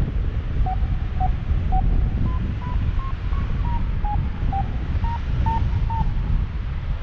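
Variometer beeping in short tones, about two a second, their pitch moving up and down with the climb rate: the sign that the paraglider is climbing in weak lift. Heavy wind noise on the microphone from the airflow in flight.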